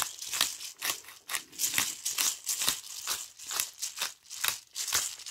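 Pepper being shaken out over raw meat: an even run of short rattling strokes, several a second.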